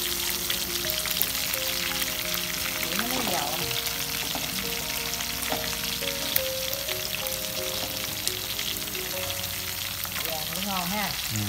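Marinated field rat pieces coated in minced lemongrass sizzling steadily as they fry in oil in a nonstick pan, stirred and turned with chopsticks. The meat is golden and done.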